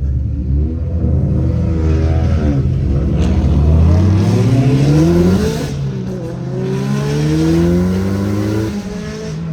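Car engine accelerating hard, its pitch climbing for a few seconds, dropping about five and a half seconds in, then climbing again.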